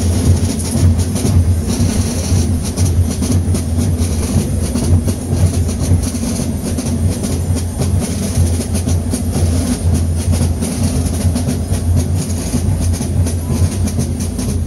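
A band of rope-tensioned snare drums drumming a fast, unbroken rhythm together.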